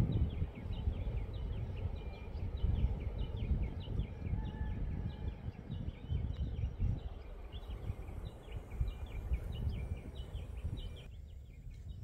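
Wind buffeting the microphone in uneven gusts, with many small birds chirping over it in quick, repeated notes. The chirping stops about a second before the end.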